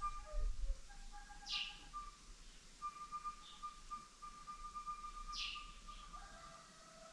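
A flute playing slow, long-held notes, one held for about three seconds in the middle. A bird gives two short high calls that sweep downward, and a brief low rumble sounds right at the start.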